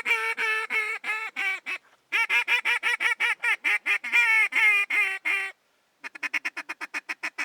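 Goose honking in rapid runs of short calls, about five a second, pausing twice; after the second pause the calls come faster, about nine a second.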